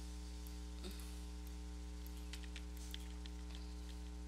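Steady electrical mains hum picked up by the recording, with a few faint, scattered computer mouse clicks.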